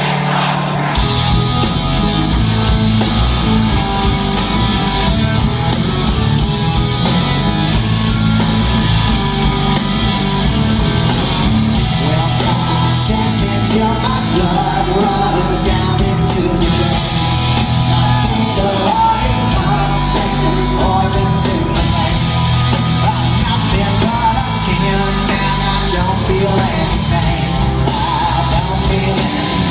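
Loud rock song: electric guitars and a driving drum beat under a singer's vocals.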